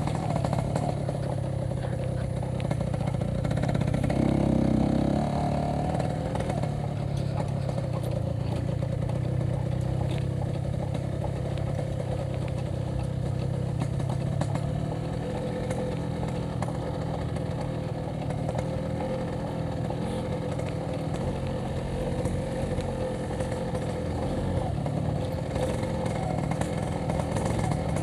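Yamaha RX-King's 135cc two-stroke single-cylinder engine running steadily while being ridden, heard from on board, briefly louder about four seconds in.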